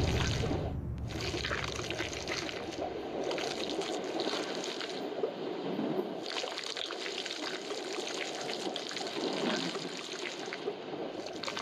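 Watery trickling and bubbling noise, fairly even in level, that fits the underwater ambience played with Google's augmented-reality 3D octopus.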